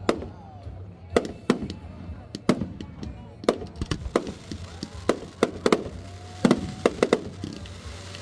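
Fireworks display going off in a rapid, irregular string of sharp bangs, about two a second, over a steady low background rumble.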